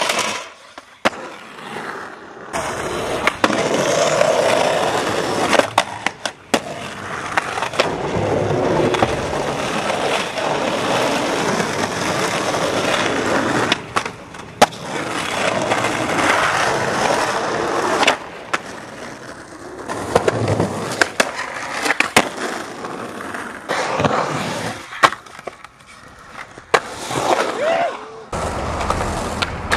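Skateboard wheels rolling on concrete, broken by sharp clacks of the board popping, hitting and landing. The sound comes in several short stretches with abrupt cuts between them.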